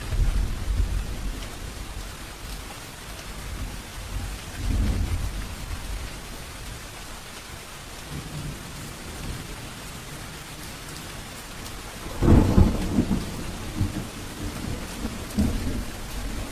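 Steady rain falling in a thunderstorm. Low thunder rumbles at the start and again around five seconds in, then a louder clap of thunder about twelve seconds in that rolls on for a few seconds.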